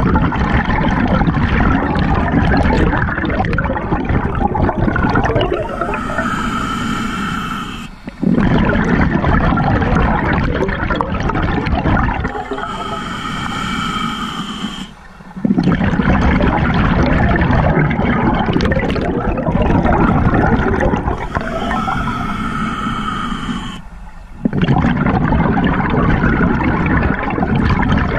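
Scuba diver breathing through a regulator, heard underwater close to the camera: long bubbling exhales alternate with shorter hissing inhales, about one breath every eight seconds.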